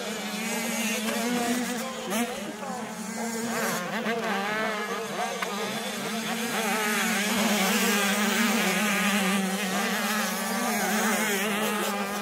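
Several 85cc two-stroke motocross bikes buzzing at high revs, their overlapping pitches rising and falling as the throttles open and close, over a steady lower drone.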